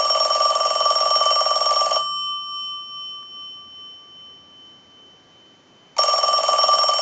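Western Electric Princess telephone's bell ringing on a ring cycle sent from a line analyzer: a ring of about two seconds, then a second ring starting about six seconds in. The bell circuit has been repaired, so the phone now rings in.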